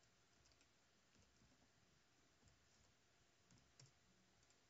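Near silence, with a few faint computer mouse clicks.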